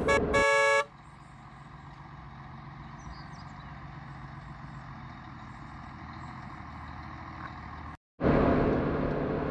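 A brief buzzy tone at the start, then a large truck's diesel engine running in the distance and slowly growing louder as it approaches. Near the end it cuts to steady road noise inside a moving vehicle's cab.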